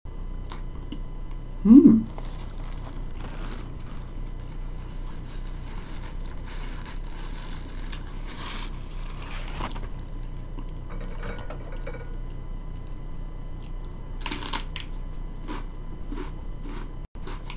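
Close-up eating sounds: chewing with small mouth clicks, a short hummed 'mm' from the eater about two seconds in, and a tissue rustling against the face in the middle. A sharp crunchy bite comes near the end.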